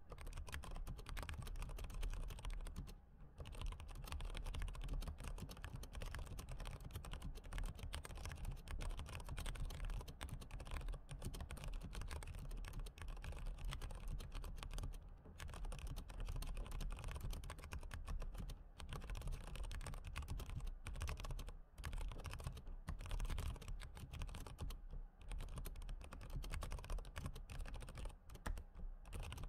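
Continuous typing on a white low-profile computer keyboard: a steady stream of key clicks, broken by short pauses every few seconds.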